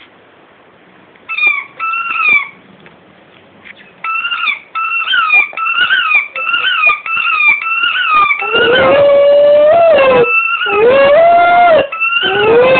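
Squeaky rubber rugby-ball toy squeaking again and again as a dog bites it, about two squeaks a second. From about eight seconds in, the dog howls along in three long notes over the squeaks.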